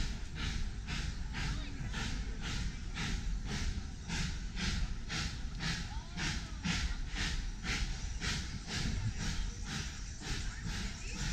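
Footsteps of a person walking on a paved path, an even rhythm of about two to three steps a second, over a low rumble on the microphone.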